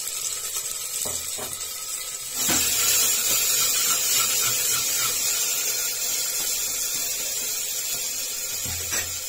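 Metal ladle stirring and scraping peas, potatoes and liquid in an aluminium pressure cooker, with a few soft knocks against the pot. A steady hiss runs underneath and grows louder about two and a half seconds in.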